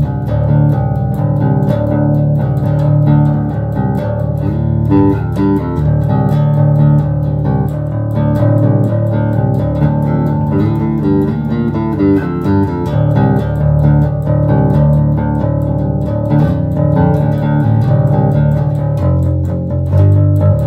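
Electric bass guitar (Jackson JS1M, tuned to drop D) played through a Fender Rumble 25 V3 combo amp with its 8-inch speaker, the mids turned up. It is riffing continuously, one plucked note after another.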